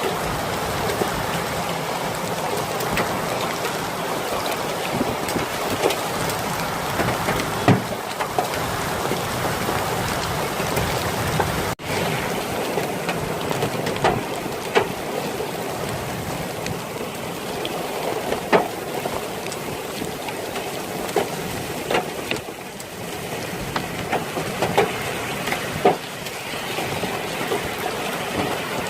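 Heavy rain falling, a steady hiss with scattered louder sharp taps of drops striking a nearby surface.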